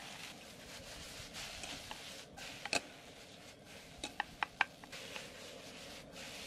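Fried rice sizzling in an iron wok over a gas camp stove as it is stir-fried, a steady hiss with a spatula knocking and scraping against the pan several times, the sharpest knock about halfway through and a quick run of knocks soon after.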